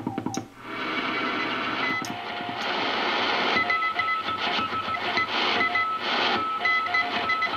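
National NC-183D shortwave receiver's speaker giving out 40-metre band noise with several Morse code signals at different pitches keyed over one another. The wanted station is weak and hard to pull out from under the interference.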